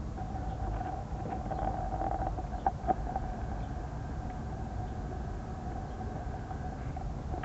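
Steady hum over a low rumble, with a couple of sharp crunching clicks a little under three seconds in as tortoises bite into lettuce leaves.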